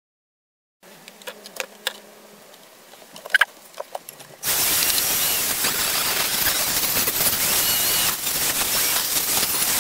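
A few quiet handling clicks, then, about halfway through, a flexible-shaft rotary tool starts and runs steadily with a loud hiss and a faint high whine, its felt polishing wheel buffing metal polish on the steel of the cleaver.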